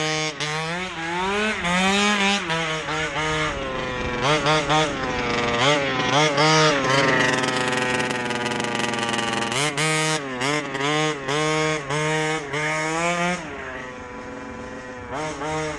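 HPI Baja 1/5-scale RC buggy's two-stroke petrol engine revving up and down as it is driven, with a sustained high-revving stretch and then a run of quick throttle blips. It passes close about halfway through and grows quieter as it drives away near the end.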